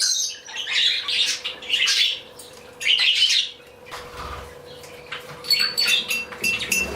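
A flock of pet budgerigars chattering in loud bursts, then a run of short, repeated high chirps near the end, over a steady faint hum.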